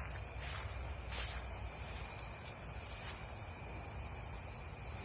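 Night insects chirping steadily in a high, even tone, with one short sharp knock about a second in.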